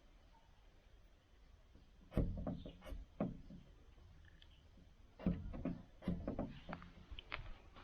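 Irregular wooden knocks and thumps, a few of them: plywood boards being handled and set down.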